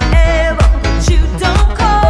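Dance-pop song: a woman sings a held, wavering line with vibrato over a steady dance beat of about two beats a second.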